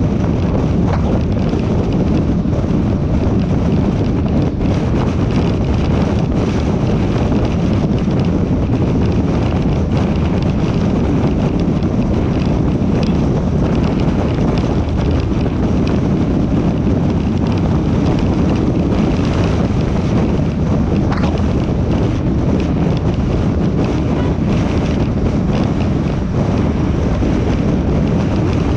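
Steady wind rumble on the microphone mixed with road and tyre noise from a car driving at speed on a highway.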